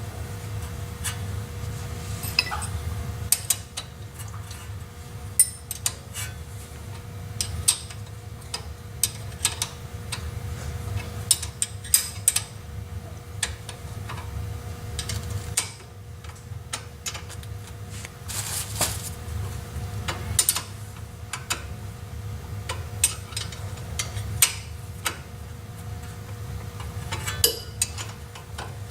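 Irregular sharp metallic clicks and clinks of a wrench tightening brake caliper bolts, over a steady low hum.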